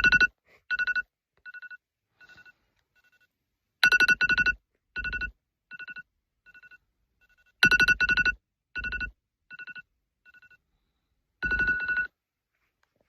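Electronic ringing tone, like a phone ringtone or alarm: a two-note beep pattern that comes four times about four seconds apart, each time starting loud and trailing off in fainter repeats like an echo, and stopping near the end.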